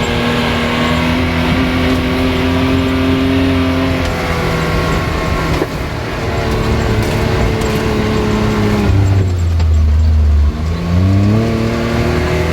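Can-Am Maverick X3 side-by-side's turbocharged three-cylinder engine running hard off-road. Its pitch climbs slowly, then drops about nine seconds in to a deep rumble. It dips briefly and rises again as the machine accelerates.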